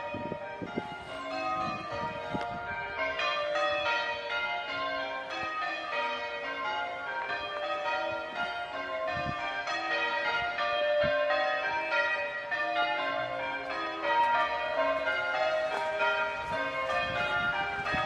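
Change ringing on a ring of six church bells (tenor 7-3-11 cwt, in B-flat), the bells striking one after another in quick succession, their ringing tones overlapping.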